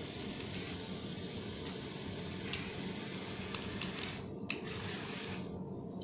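Small electric motors and plastic gears of a Lego remote-control car whirring steadily as it drives across a tile floor, with a few light clicks. The higher part of the whirring drops away near the end.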